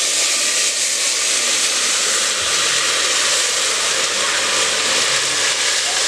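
Sliced tomatoes sizzling in hot oil in a steel pot, a loud, steady hiss of frying and steam.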